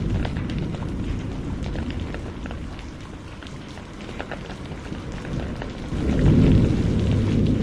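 Steady rain with rolling thunder: a low rumble that eases off over the first few seconds and swells up again about six seconds in, under the patter of raindrops.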